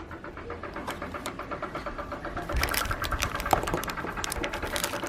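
Rapid, steady mechanical clicking and rattling, getting louder about two and a half seconds in.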